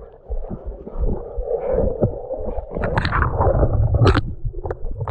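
Dry brush and twigs rustling and crackling as a person pushes through thick undergrowth, with a few sharp snaps about three and four seconds in, over a steady low rumble of body-worn camera handling noise.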